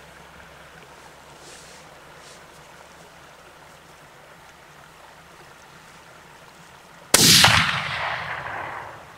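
A single rifle shot about seven seconds in: a sudden loud crack whose report rolls away in echo for about two seconds.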